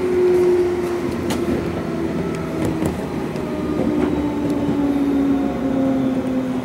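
Electric commuter train heard from inside the car, its motor and gear whine falling steadily in pitch as it slows alongside a station platform, with the rumble of the wheels and a few sharp clicks from the track and car body.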